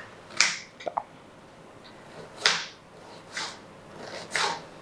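Kitchen knife chopping an onion into small pieces: a few separate sharp chops, one about half a second in, then three more about a second apart in the second half.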